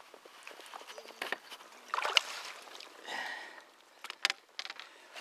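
Water splashing and sloshing in irregular bursts as a hooked herabuna (crucian carp) thrashes at the surface and is scooped into a landing net.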